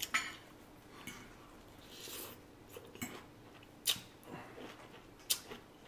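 Quiet chewing and mouth sounds of someone eating, with a few short faint clicks scattered through.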